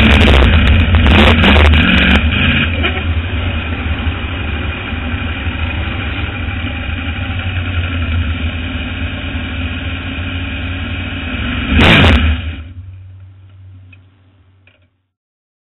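305 sprint car's V8 engine heard from the in-car camera. It runs very loud at first, then the note drops after about two seconds and holds steady. A brief loud rush comes about twelve seconds in, then the sound fades out.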